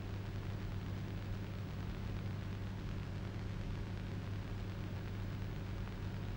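Steady hiss with a low, even hum: the background noise of an old 1960s film soundtrack, with no other sound standing out.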